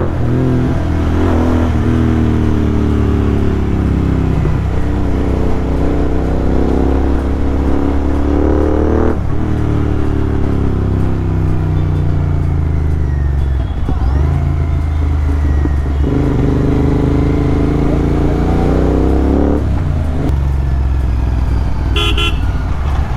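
Royal Enfield GT650's parallel-twin engine under way, pitch climbing steadily in each gear and dropping at upshifts about nine seconds in and again near twenty seconds, with a brief dip in between.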